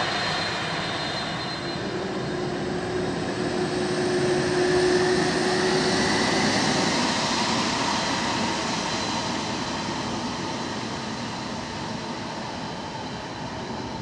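McDonnell Douglas MD-11F freighter's jet engines running as the trijet taxis past: a steady whine over a rushing noise. It grows louder to about five seconds in, then slowly fades as the aircraft moves away.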